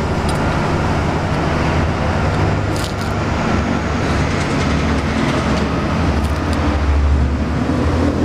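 Steady low rumble of road traffic and engines, with a few short clicks over it, the clearest a little under three seconds in.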